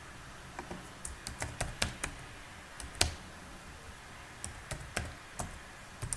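Typing on a computer keyboard: irregular runs of a few keystrokes at a time, with the sharpest single click about three seconds in.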